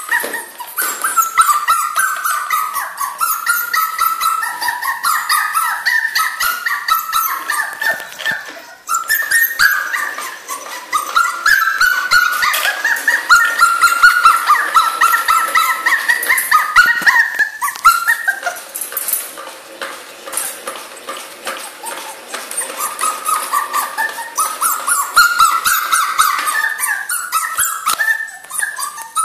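Two-month-old puppy whining and crying almost without a break: high, wavering whines that step up and down in pitch. They ease off for a few seconds about two-thirds of the way through, then return.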